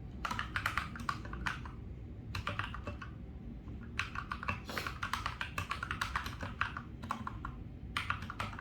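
Typing on an Akko 3068 Silent mechanical keyboard: quick runs of key clicks in four bursts, with short pauses between them.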